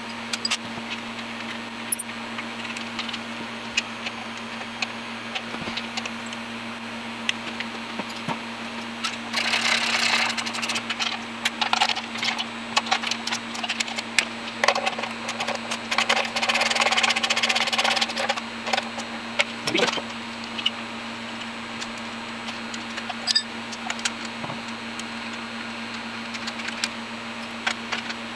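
Hands and tools working on a commercial oil burner's motor: scattered metal clicks and taps, with two stretches of scraping and rustling about ten and fifteen seconds in, over a steady low hum.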